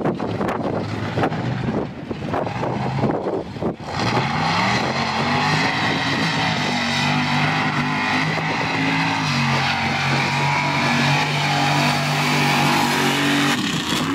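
Mud racing truck's engine at full throttle. It comes in loud about four seconds in, climbing in pitch, then holds at high revs with small steps in pitch until it falls away near the end.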